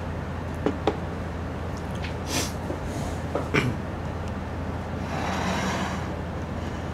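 A plastic cup and a ceramic bowl handled on a wooden table: two light knocks about a second in as the cup is set down, more knocks a little after three seconds, and a brief scrape at about five seconds as the bowl is slid forward, all over a steady low hum.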